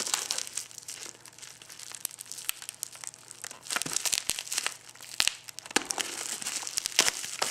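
Plastic packaging being crinkled and rustled by hand as a parcel is unwrapped, a run of irregular crackles with some tearing.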